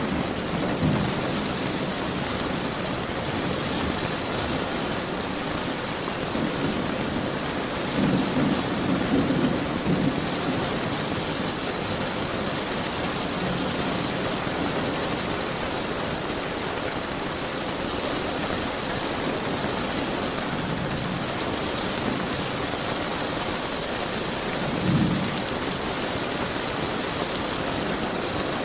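Steady rain with rumbles of thunder: a low roll near the start, a longer one about a third of the way in, and a short one near the end.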